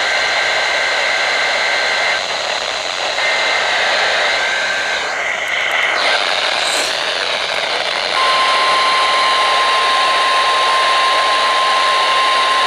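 NOAA Weather Radio alert heard through a hissy radio receiver. It opens with repeated bursts of the SAME digital header, a harsh two-tone data warble. About eight seconds in, the steady single-tone 1050 Hz warning alarm starts and holds.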